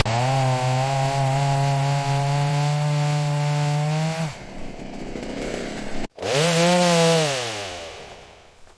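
Chainsaw running at high revs with a steady engine note for about four seconds, then dropping off. After a sudden break it revs up once and winds down, fading out near the end.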